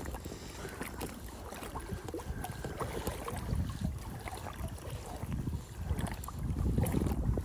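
Water lapping and splashing around a belly boat (float tube), with wind rumbling on the microphone that grows louder near the end.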